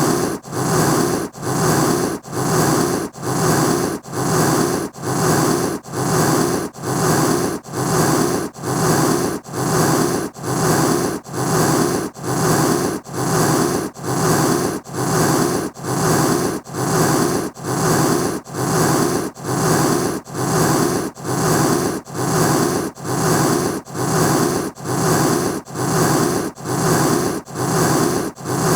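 Cat hissing: short breathy hisses repeated evenly, about one a second.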